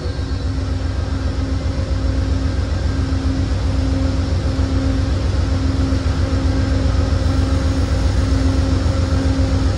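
Steady low hum of an Amtrak passenger train standing at the platform with its machinery running, a wavering mid-pitched tone over a deep drone that grows slightly louder.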